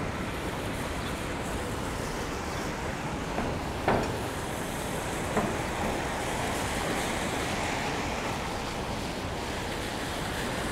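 Steady rushing hiss of city street traffic, tyres on wet pavement, with two short sharp knocks, the first about four seconds in and the second a second and a half later.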